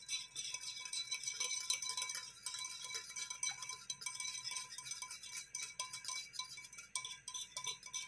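Metal wire whisk beating sauce in a bowl: a fast, continuous clicking as the wires strike the bowl, with a faint ringing.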